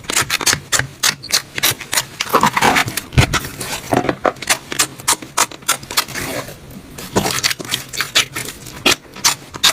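Slime being squeezed and poked by hand, making irregular sticky clicks and pops several times a second, with a few longer, wetter squelches.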